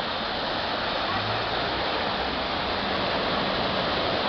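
Floodwater rushing steadily over a submerged sidewalk and pouring into a storm drain.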